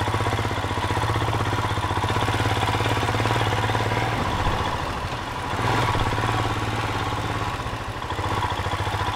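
Single-cylinder motorcycle engine of a Royal Enfield Himalayan running steadily with an even low thump, dipping slightly in level about halfway through.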